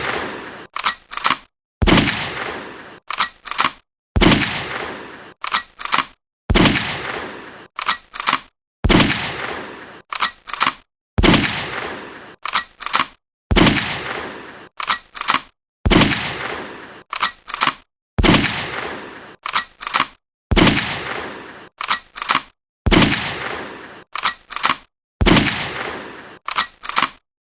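Gunshot sound effect repeated over and over: each loud shot rings out with a long echoing tail and is followed by three short, sharp clicks or pops. The cycle repeats about every two and a quarter seconds.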